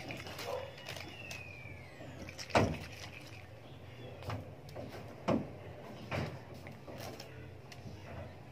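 Pump-spray bottle of face mist sprayed in a few short puffs, the loudest about two and a half seconds in.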